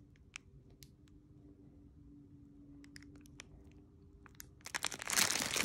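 Clear plastic packets of diamond-painting drills crinkling as they are turned over in the hand: scattered faint crackles at first, then a louder stretch of crinkling near the end.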